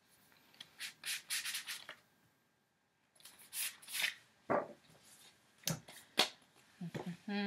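A CD album's packaging being handled and opened: rustling and rubbing in a few short bouts, with a couple of sharp clicks near the end.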